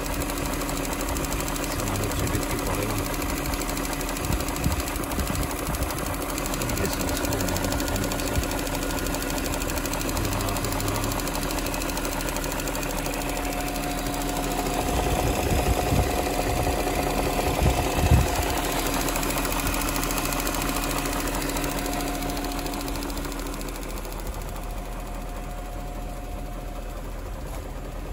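BMW 740i E38's 4.4-litre V8 idling steadily while it warms up after a cold start. A brief louder knock comes about two-thirds of the way through, and the sound eases slightly near the end.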